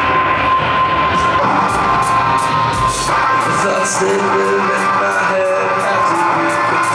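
Live rock band playing electric guitars, with a drummer's cymbal ticking out a steady beat from about two seconds in and a voice yelling over it.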